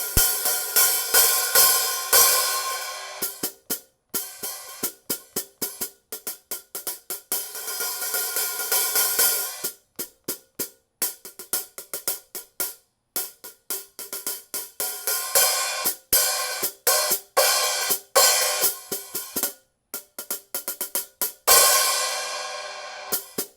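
Zildjian 13-inch A Mastersound hi-hats played in quick runs of short closed strikes, opened now and then into a bright ringing wash that cuts off sharply as the cymbals close, with brief pauses between runs. The top cymbal has had its crack repaired.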